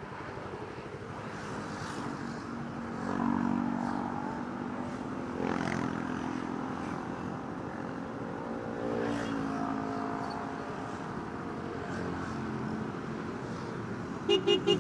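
Motorcycle engines running and idling amid passing road traffic, the engine hum swelling a few seconds in. Near the end come three quick horn toots.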